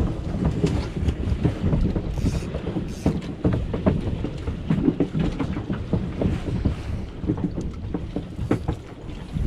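Wind noise on the microphone on a small boat, a steady low rumble, with scattered short knocks and taps throughout.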